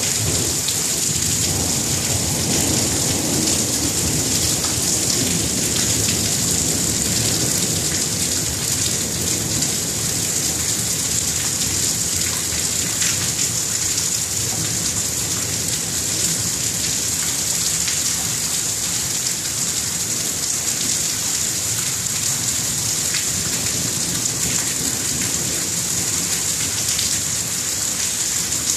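Steady rain falling in a thunderstorm, an even hiss, with a low rumble of thunder that fades over the first few seconds.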